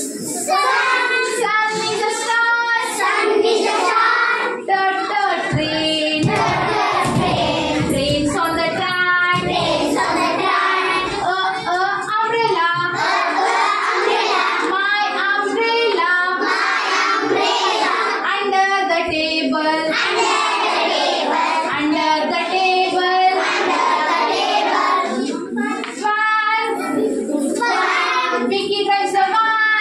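A group of young children singing together, led by a woman's voice, in a continuous, unaccompanied action song on English alphabet sounds.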